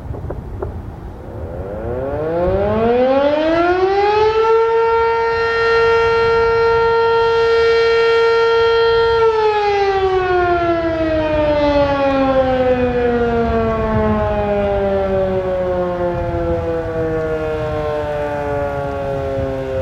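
Federal Electric Fedelcode Mach 7 outdoor warning siren sounding its noon blast. It winds up from a low pitch to a steady high tone over a couple of seconds and holds it for about five seconds. Then it slowly winds down, the pitch falling away.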